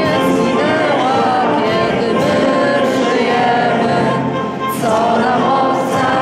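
A group of voices singing an anthem together with instrumental accompaniment, in a slow, sustained melody.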